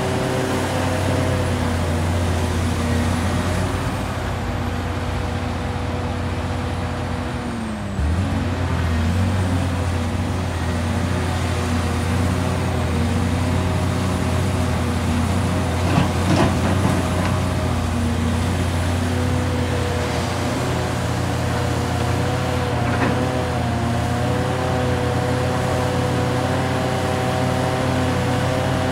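Hitachi Zaxis 670LCR hydraulic excavator's Isuzu six-cylinder diesel engine running steadily under digging load, its pitch sagging for a few seconds partway through. A short clattering rumble about halfway through, as a bucket of earth drops into a dump truck's bed.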